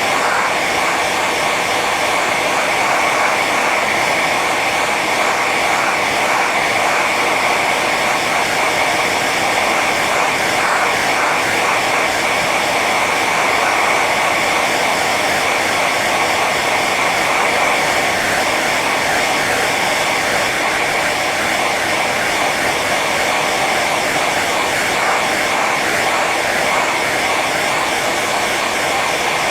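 Hair dryer running steadily on its high setting: an even rushing of air with a steady whine.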